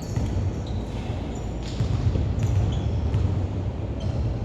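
Basketball game on an indoor court: a ball bouncing a few times, with short high squeaks, over a steady low rumble of the hall.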